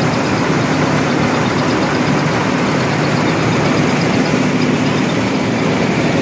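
Tractor-powered rice mill running steadily: the Sonalika DI-50's diesel engine and the belt-driven milling machinery make one continuous, even mechanical drone.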